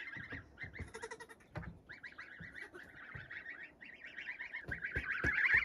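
A flock of geese calling, with many short honks overlapping and growing louder toward the end.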